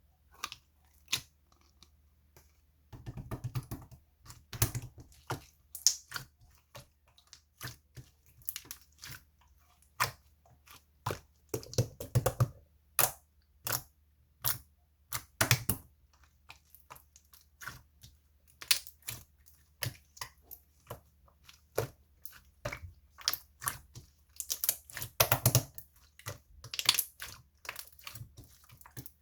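Keys tapped on a computer keyboard: irregular sharp clicks, single or in short runs, with denser bursts a few seconds in, near the middle and near the end.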